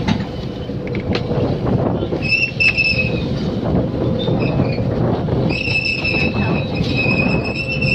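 Fishing boat's engine running steadily, with a high-pitched squeal of boat gear cutting in briefly about two seconds in and again from about five and a half seconds on.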